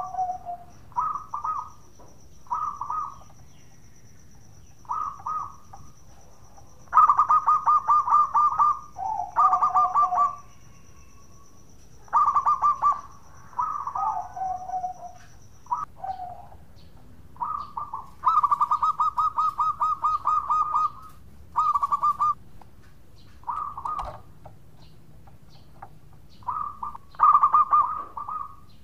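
Zebra dove (perkutut) cooing: a dozen or so short phrases of rapid, trilled coo notes, some ending on a lower note, with one longer rolling trill about two-thirds of the way through.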